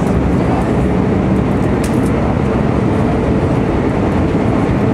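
Steady in-flight cabin noise of an Airbus A319: the rush of airflow and the jet engines running, heard from a window seat over the wing, with a low hum under it.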